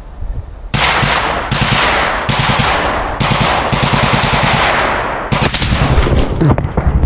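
Loud automatic gunfire in a firefight. It starts suddenly under a second in and comes in several long bursts of rapid shots with brief breaks between them, stopping just before the end.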